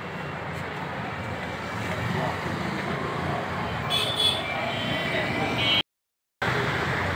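Busy open-air market ambience: indistinct background voices over a steady hum of road traffic. The sound cuts out completely for about half a second a little before six seconds in.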